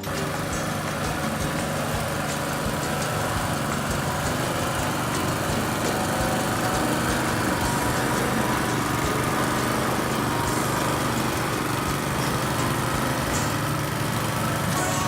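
Small engine of a powered soil roller running steadily as it rolls and semi-compacts freshly graded soil before sod is laid.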